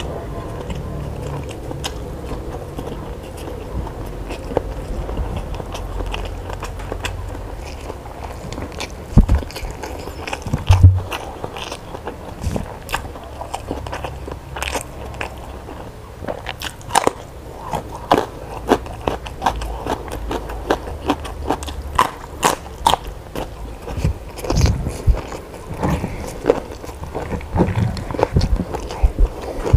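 A person chewing and biting food close to the microphone, with many sharp crisp crunches and clicks. The crunches grow busier about halfway through.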